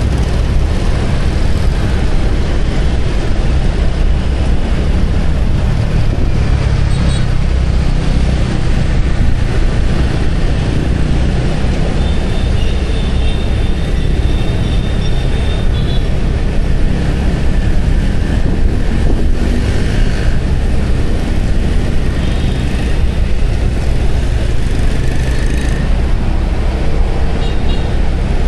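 Steady road noise from a moving motorbike: a low rumble of wind on the microphone and engine, with the surrounding motorbike and car traffic.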